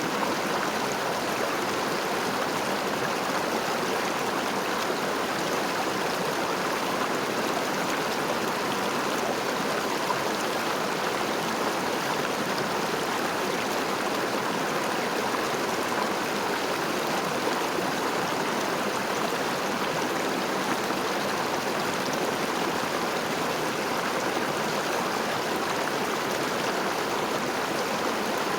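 A river's flowing water rushing steadily, with no change in level.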